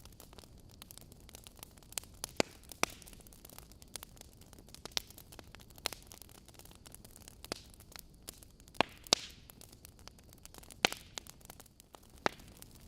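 Wood fire burning in a fireplace: irregular sharp crackles and pops from the logs over a soft steady hiss, with a few louder snaps about two and a half, nine and eleven seconds in.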